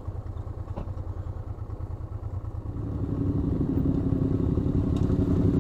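Honda Transalp 650 V-twin motorcycle engine running at low speed. About three seconds in it grows louder, with a steadier hum.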